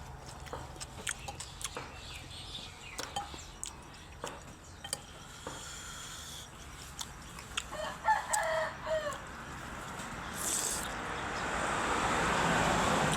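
A rooster crowing once, about eight seconds in, among scattered light clicks. Near the end a broad rush of noise swells up and holds.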